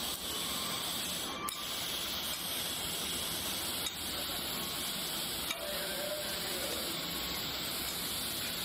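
Steady hiss of a TIG (argon) welding arc burning continuously while laying a root pass on a pipe joint.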